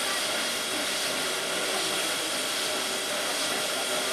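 ČSD class 498.1 'Albatros' three-cylinder express steam locomotive standing in steam, giving off a steady hiss of escaping steam.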